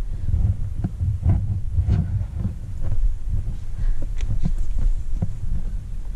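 Wind buffeting the microphone in an uneven low rumble, with scattered sharp clicks and knocks over it.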